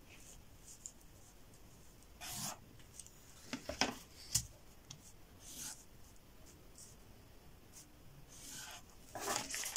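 Felt-tip marker drawing lines on pattern paper along a wooden set square, heard as several short scratchy strokes, with a light knock about halfway through.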